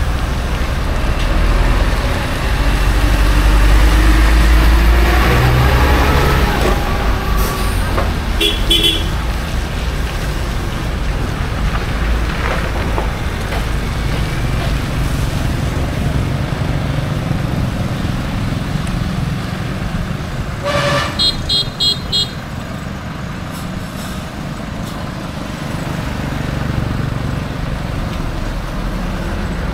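Motor vehicle engine and road noise running steadily, with horns honking: a short horn about eight seconds in and a string of quick beeps around twenty-one seconds.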